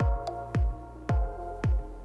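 Electronic background music with a steady kick-drum beat, about two beats a second, over sustained synth chords.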